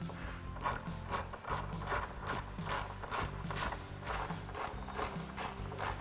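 Hand ratchet with a T25 Torx socket clicking in short, even back-strokes, a little over two a second, tightening a Torx screw. The strokes start about half a second in.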